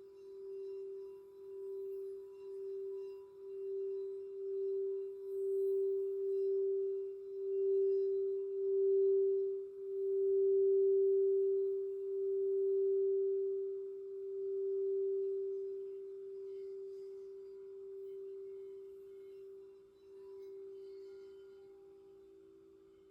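Crystal singing bowl sung by circling its rim: one sustained ringing tone that wavers about once a second, swells to its loudest about halfway through, then slowly fades. Near the end a second, slightly lower tone sounds beside it.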